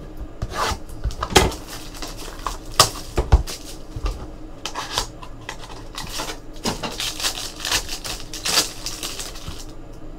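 Trading-card packaging being opened by hand: clear plastic wrap crinkling, with irregular clicks and knocks from a cardboard box and cards being handled on a tabletop.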